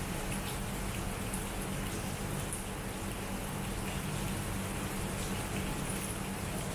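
Steady rain falling, an even hiss with faint scattered drips, over a low steady hum.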